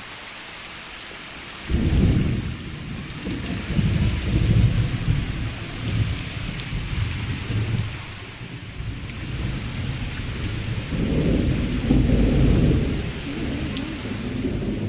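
Rain falling steadily, with low rolling thunder that starts abruptly about two seconds in, rumbles for several seconds, and rolls again from about eleven seconds.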